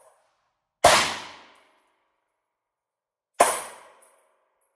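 Two rifle shots about two and a half seconds apart, each a sharp crack followed by a short echo off the walls of an indoor range.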